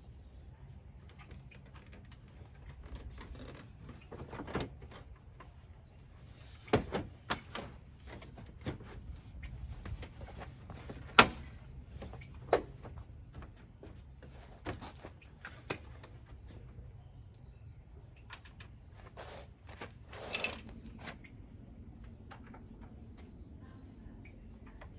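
Scattered clicks, taps and knocks of plastic and metal parts as a pickup's front grille is handled and fitted, the sharpest knock about eleven seconds in and a brief rustle near twenty seconds, over a low steady hum.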